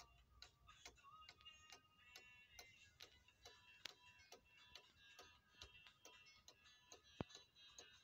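Faint, steady ticking of a Soviet SChZ (Serdobsk) weight-driven pendulum cuckoo clock's escapement, a little over two ticks a second.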